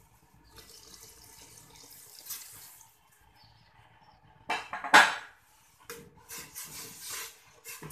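Coconut milk poured from a bowl into a steel pot of simmering curry, splashing and sloshing in uneven bursts, loudest about five seconds in.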